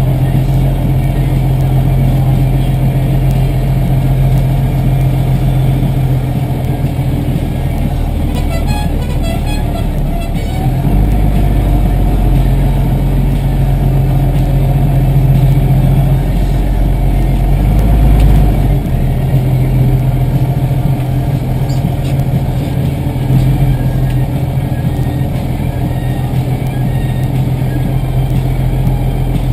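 Tractor diesel engine running steadily while under way, heard close up from the tractor carrying the camera, its note shifting about a third of the way through and again past the middle.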